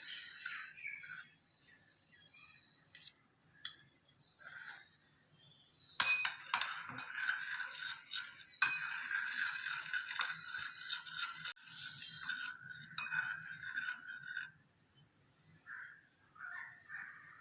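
Kitchen utensils clinking and scraping against glass, with two sharp clinks about six and nine seconds in and busy clinking between them and after, stopping near the end.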